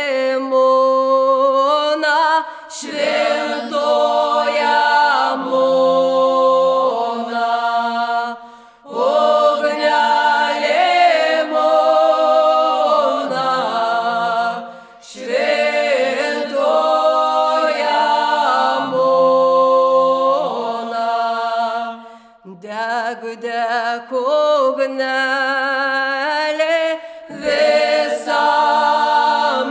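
Mixed group of voices chanting a Lithuanian ritual folk hymn (giesmė) in harmony, unaccompanied. The singing comes in phrases of a few seconds with brief breath pauses between them.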